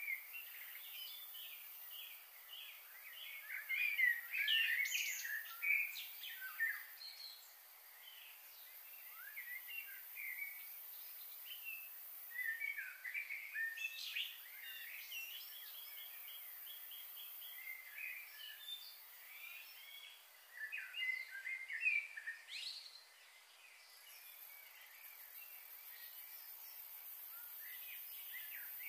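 Small songbirds chirping and twittering in repeated bursts, loudest about four to six seconds in and again just after twenty seconds, over a faint steady high hiss.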